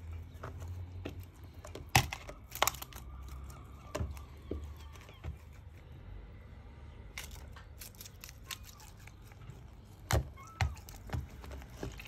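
A seagull's beak pecking and tapping at a plastic food tub and the surface beside it: a run of sharp, irregular clicks, two loud ones about two seconds in and another cluster near the end.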